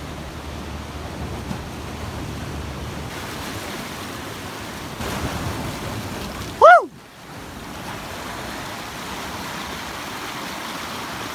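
Ocean surf washing over and around rocks at the shoreline, a steady rushing of breaking waves. About two-thirds of the way through comes one brief, loud call that rises and then falls in pitch.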